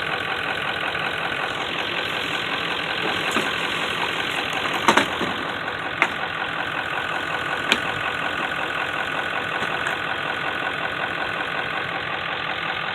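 A vehicle engine idling steadily, with a few sharp metallic clicks around the middle.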